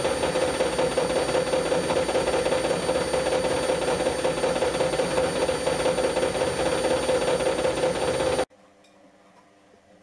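Whirlpool front-loading washing machine running empty on a diagnostic test cycle: a steady mechanical hum with a whirring noise over it, which cuts off suddenly near the end.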